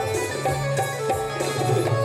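Instrumental interlude of a Marathi folk song: a melody instrument holding steady notes over a hand-drum rhythm.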